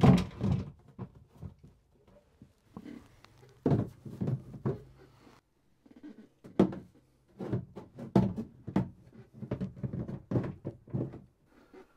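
Black plastic battery boxes being handled and pushed into place on their platforms: a series of irregular knocks and thuds of plastic on plastic.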